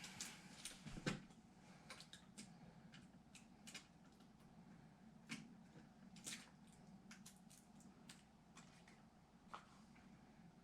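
Faint, scattered clicks and light taps of hands handling computer parts, with a sharper knock about a second in, over a low steady hum.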